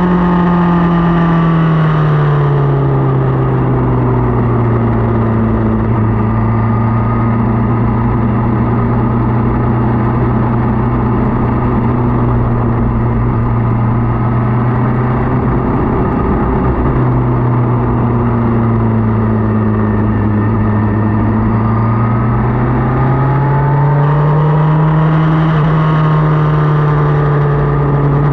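Motorcycle engine running on the road, with steady rumbling wind noise. The engine note drops a couple of seconds in, holds steady for a long stretch, then climbs again near the end as the engine picks up revs.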